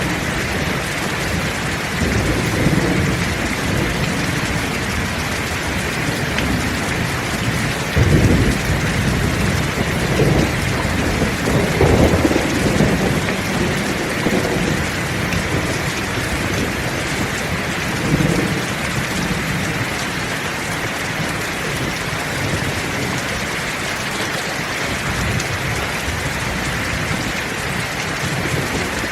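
Heavy steady rain with rolling thunder: low rumbles swell about two seconds in, again around eight seconds, most strongly between ten and thirteen seconds, and a last one near eighteen seconds, then the rain carries on alone.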